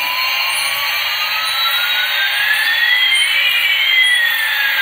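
Toy Airbus A380's electronic jet sound effect from its small built-in speaker: a steady hissing whoosh with one tone slowly rising and another slowly falling, the two crossing about three and a half seconds in.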